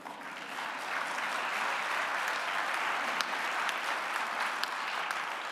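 Audience applauding, swelling over the first second, holding steady, then dying away near the end.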